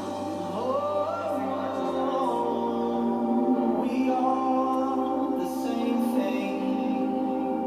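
Music with singing voices holding long, sustained chords.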